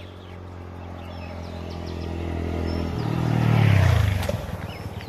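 A motorcycle approaching and passing close by. Its engine note grows louder, peaks a little under four seconds in, then drops in pitch and fades as it goes past. Faint bird chirps sound over it.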